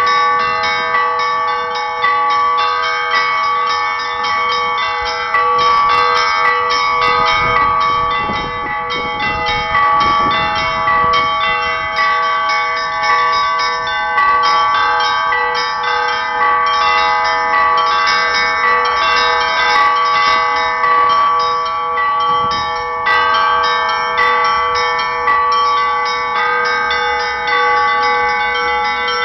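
Pakshenga church bells rung in the Russian Orthodox manner: a continuous, rapid peal of small bells struck in quick succession over the steady ring of the larger bells.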